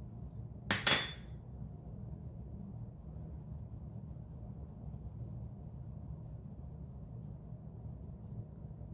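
A stainless mesh sieve knocks once against the glass mixing bowl about a second in: a sharp clink with a short ring. After it come faint light ticks as flour is shaken through the sieve, over a steady low hum.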